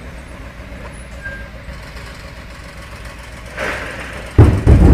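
Distant artillery explosion: a sudden loud, deep boom near the end, out of a steady low rumble.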